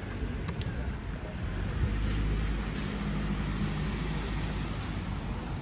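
A car passing on a wet street: its engine hum swells about two seconds in and fades, over a steady hiss of tyres and rain.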